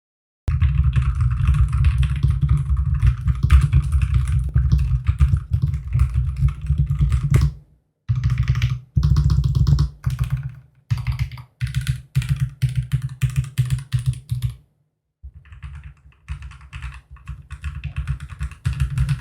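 Mechanical keyboard fitted with Akko Cream keycaps being typed on: fast continuous keystrokes for the first seven seconds or so, then shorter runs of typing broken by brief pauses, somewhat softer near the end.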